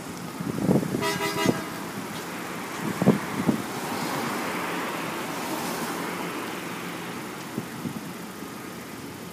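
A vehicle horn gives one short toot about a second in, then a car passes close by, its tyre and road noise rising and fading over a few seconds. A few short low thumps come near the start and around three seconds in.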